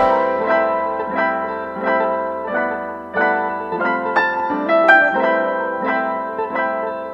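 Background piano music: a gentle melody of single notes and chords, each struck and left to fade, at a slow, even pace.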